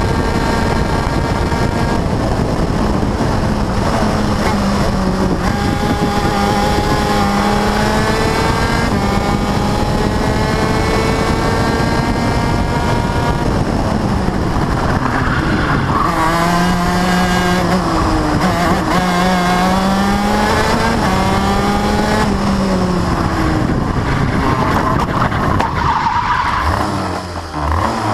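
Race car engine heard onboard over heavy wind noise, revving up through the gears with the pitch climbing and dropping back at each upshift. About halfway through it brakes and downshifts, then pulls away again. Near the end the engine note falls away and the tyres squeal briefly as the car slows at a bend.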